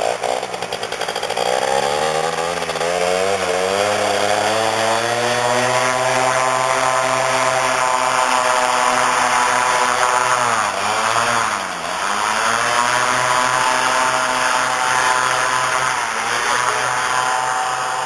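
Paramotor engine and propeller running up to full power for a takeoff: the pitch rises steadily over the first few seconds, holds high, dips briefly twice about ten to twelve seconds in as the throttle is eased, then climbs back and holds steady.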